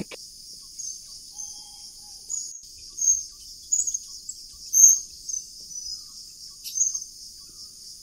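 Steady high-pitched insect chorus, with short high chirps scattered through it, a few louder ones near the middle.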